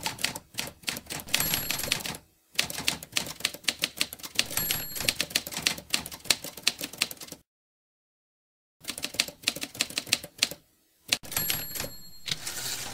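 Typewriter keys clacking in quick runs of keystrokes, stopping briefly twice, with a short high ring a few times, typing out the credits.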